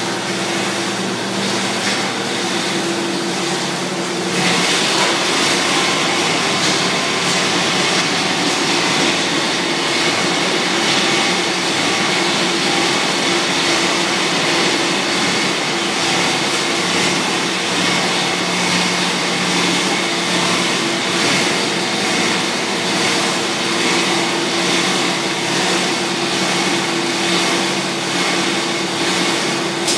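Plastic profile extrusion line with a caterpillar belt haul-off running, making cable trunking: steady machine noise with a motor hum and a strong hiss, which gets louder and hissier about four seconds in.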